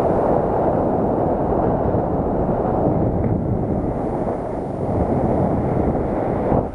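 Wind rushing over the microphone of a camera on a paraglider in flight: a steady, loud, low rush of airflow noise.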